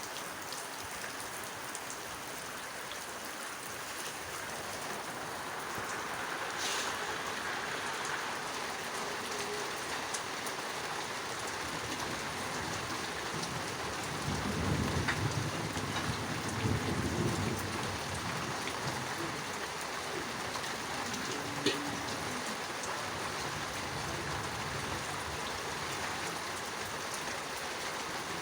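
Heavy rain falling steadily. A low thunder rumble swells about halfway through and dies away a few seconds later, and there is a single sharp tap about three quarters of the way in.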